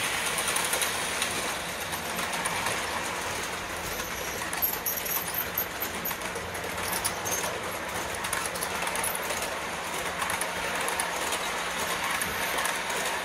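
O gauge model freight train rolling past on three-rail track: a steady run of metal wheels on the rails, with faint clicks as the cars pass over the track joints.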